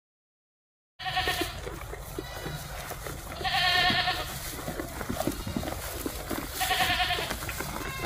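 Makhi Chini goats bleating: three high calls, about a second in, around three and a half seconds in, and near the end. The middle call is the longest and wavers.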